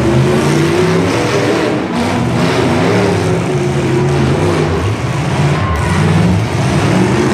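Several demolition derby cars' engines running loud and revving, their pitches rising and falling against one another.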